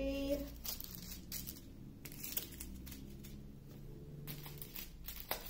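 Small plastic bags of diamond painting drills crinkling as they are handled and laid down, in scattered rustles with a sharper crinkle near the end.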